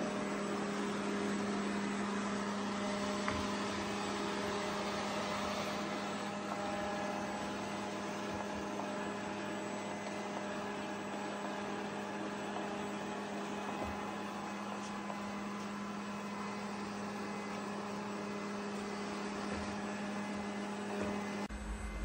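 Robot vacuum cleaner running: a steady motor hum with an even whirring hiss. Near the end the hiss drops away and a few low knocks come in.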